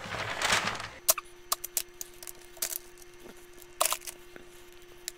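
A wire whisk swishing through brownie batter in a stainless steel bowl. Then, about a second in, a faint steady hum with scattered sharp clicks and taps as the batter is scraped out of the metal bowl with a silicone spatula onto parchment paper.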